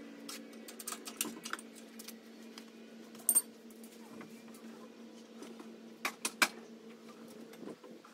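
Hand tools and metal parts clinking and clicking against the car while the engine mounts are being bolted up. There are scattered light taps, a louder ringing clink about three seconds in, and two sharp clicks about six seconds in, over a steady low hum.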